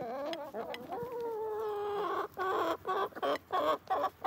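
Chickens calling: one drawn-out note that falls slightly over about two seconds, then a quick run of short clucks, about four a second.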